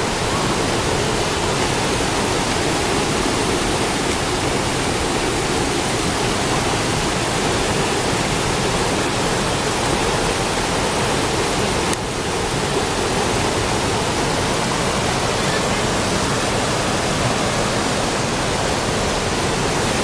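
Steady rush of a small rainforest waterfall and the white-water rapids of the rocky stream below it, an even roar of falling and tumbling water.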